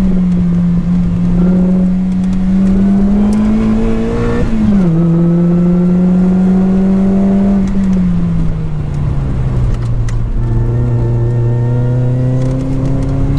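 Lotus Elise 220 Sport's supercharged 1.8-litre four-cylinder engine, fitted with a 2bular H1 exhaust silencer, running hard on track. Its pitch climbs, drops sharply at a gear change about four and a half seconds in, holds, falls away off the throttle around eight seconds, then climbs again near the end under acceleration.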